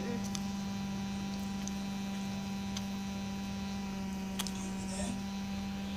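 Steady electrical hum with a few faint clicks, the clearest about four and a half seconds in.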